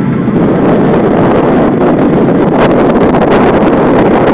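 Loud, steady wind buffeting the microphone over the rush of a boat running through choppy water, with a few short crackles midway.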